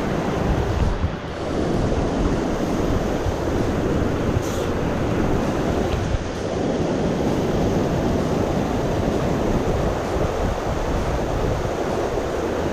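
Steady rush of a mountain stream's flowing water, with low wind rumble on the microphone.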